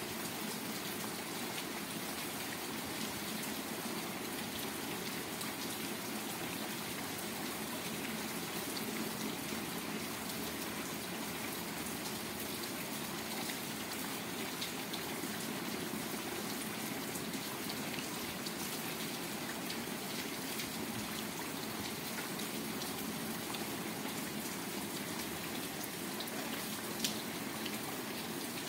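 Steady rain falling on a waterlogged yard: an even hiss with scattered small drop ticks, and one sharper tick near the end.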